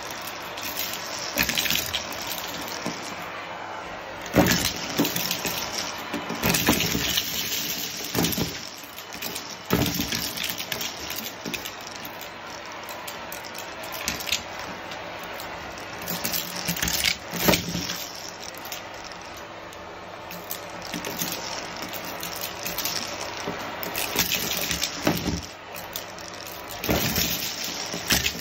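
Vacuum cleaner running steadily through a bare metal wand, with crunching and rattling as small hard debris is sucked up and clatters through the tube. Louder clattering bursts come every few seconds as clumps of pieces go up at once.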